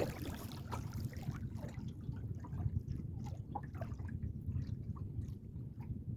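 Water dripping and trickling off a kayak paddle, with small light splashes at the hull, over a low steady rumble.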